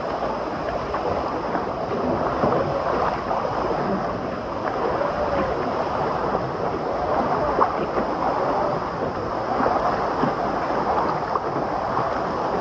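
Water park wave pool: water surging and splashing in a steady rush, with scattered voices of bathers in the mix.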